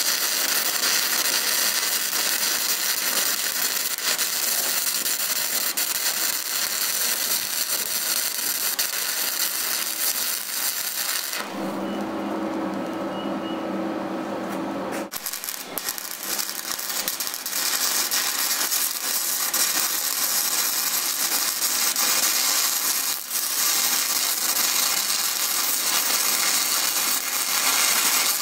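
Stick (SMAW) welding arc crackling and sizzling steadily. About eleven seconds in, the arc stops for roughly three and a half seconds, leaving a low steady hum, then it strikes again and crackles on.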